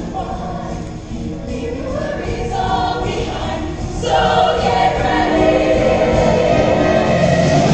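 All-female show choir singing in full chorus with a live band backing, growing louder about four seconds in.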